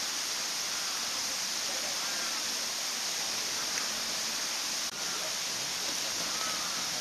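Steady rushing hiss of running water, with faint short chirps about every second and a brief dip with a soft click about five seconds in.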